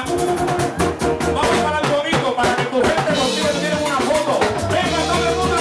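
Live plena band playing: a man sings into a microphone over a drum kit and band with a steady, driving drum beat.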